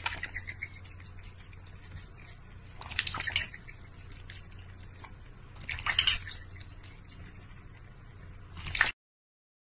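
Water splashing and dripping in a stainless steel bowl as a duck dabbles its bill in it, in short bursts about every three seconds over a faint low hum. The sound cuts off suddenly near the end.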